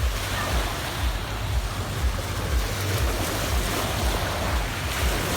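Adriatic sea waves washing steadily onto a pebble beach, with gusts of wind rumbling on the microphone.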